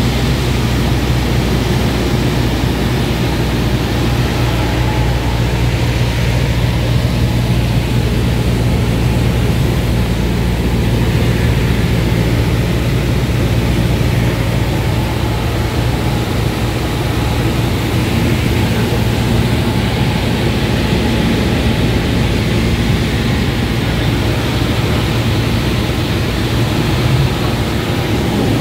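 Steady drone of a Cessna 172's engine and propeller in cruise, heard inside the cabin, with a constant rush of airflow noise.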